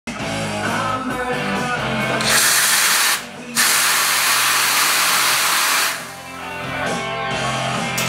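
Steam wand of a Nuova Simonelli three-group espresso machine opened, a loud hiss of steam starting a little over two seconds in, breaking off briefly around three seconds, then running on until about six seconds and dying away.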